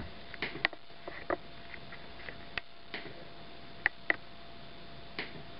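Light, sharp clicks, about eight at irregular intervals with two close together near the middle, over a faint steady tone.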